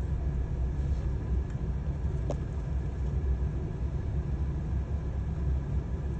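Steady low engine rumble of an idling vehicle heard from inside a car.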